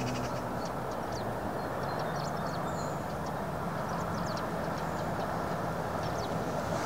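Steady low outdoor rumble with a faint hum, and small birds chirping now and then.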